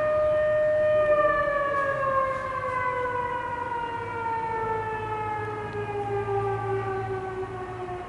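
Civil-defence air-raid siren warning of warplanes overhead. It holds a steady wail, then winds down, its pitch falling slowly from about a second in.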